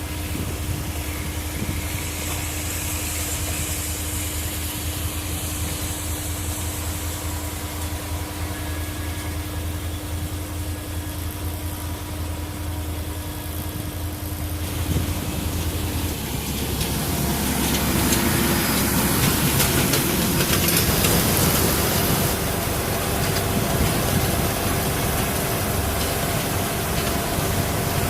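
Farm tractor engine running steadily with a low hum. About halfway through, the sound changes and grows louder and fuller.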